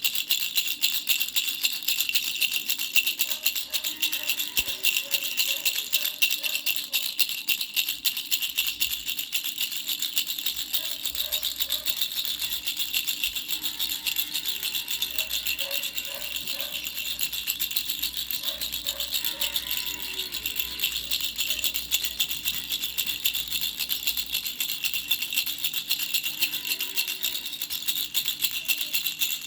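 Baby rattle with three small bells, shaken continuously: a rapid, steady jingling that never pauses.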